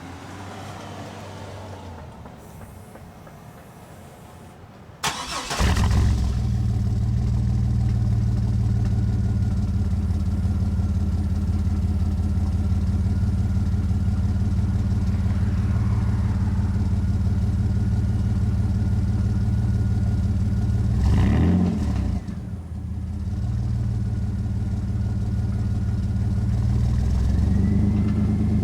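2001 Chevrolet S-10 pickup's engine, exhausting through a Cherry Bomb muffler that exits at the side, starting about five seconds in and settling into a steady idle. There is a short knock around two-thirds of the way through, and the revs begin to climb near the end.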